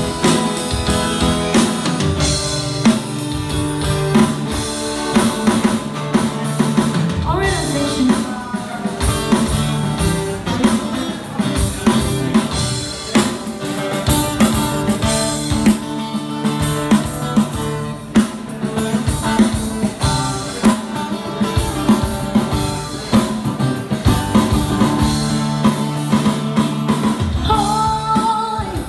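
Live band music: an acoustic guitar with a drum beat played with sticks, steady throughout.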